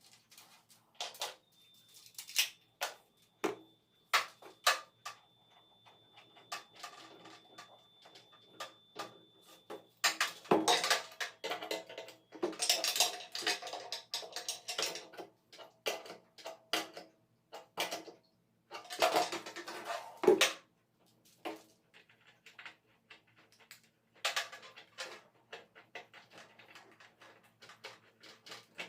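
Irregular clinks, knocks and scraping of hard tools and fittings being handled, in several louder clattering spells. A faint thin steady whine runs through the first third.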